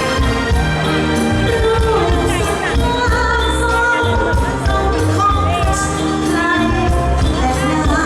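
Live Thai band music with a singer: a loud song with a steady bass beat and a wavering vocal melody over it.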